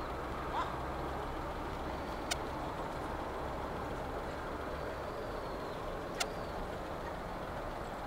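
Steady, distant rush of a Boeing 767-300's jet engines on final approach, with two sharp clicks about two and six seconds in.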